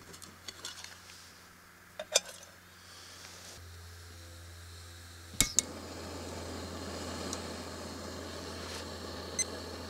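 Light metallic clinks of the probe and pot, then gas hissing from a canister-top camping stove as its valve is opened. About halfway through a sharp click lights it, and the burner then runs with a steady hiss.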